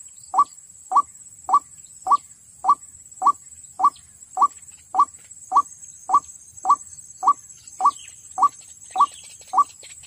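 White-breasted waterhen calling: a steady run of short, upward-sliding notes, just under two a second, evenly spaced. A faint steady high-pitched whine runs behind the calls.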